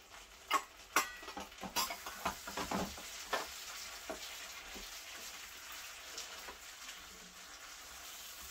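Prawns frying in a pan of garlic butter and sauce, with a steady sizzle. A spoon knocks and scrapes against the pan several times in the first three seconds as they are stirred.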